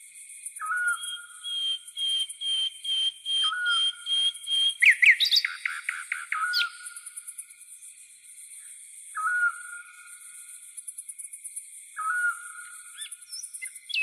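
Night forest ambience: a bird repeats a short whistled note about every three seconds over a high, steady insect trill. A long held higher whistle in the first few seconds gives way to a quick flurry of chirps about five seconds in.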